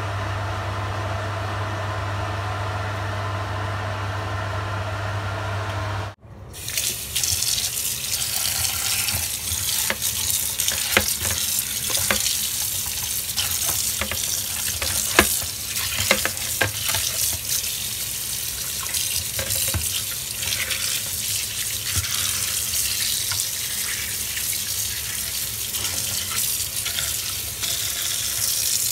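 A steady machine hum for about six seconds, then tap water running onto blanched lamb pieces in a plastic colander. Sharp clicks and knocks come as a hand turns the meat under the stream.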